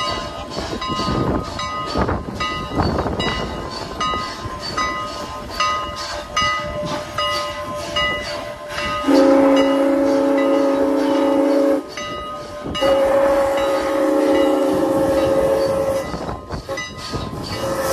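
Canadian National 89, a 2-6-0 steam locomotive, working toward a grade crossing: its exhaust chuffs in a steady beat, then its steam whistle sounds two long blasts of about three seconds each, with a third starting near the end, the long blasts of the crossing whistle signal. A grade-crossing signal bell dings in a repeating pattern behind the chuffing.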